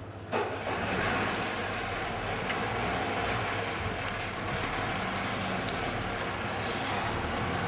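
Motor vehicle running: a steady engine and road noise with a low hum that starts abruptly about half a second in.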